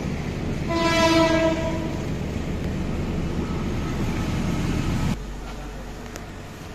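A train horn sounds once, a single steady note lasting a little over a second, over a steady low rumble of railway noise. About five seconds in, the rumble gives way abruptly to a quieter steady hum.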